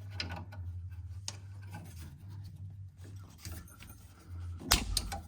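Small metallic clicks and scrapes of hand tools working the loosened sway bar link nut, over a steady low hum, with a louder metal clank near the end.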